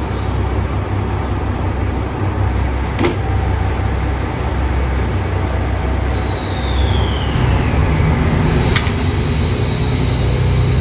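Diesel express railcar engines idling with a steady low rumble. There are two sharp clicks, one about 3 seconds in and one near 9 seconds, and a short falling whine around 6 to 7 seconds. The engine note grows a little louder and deeper over the last few seconds.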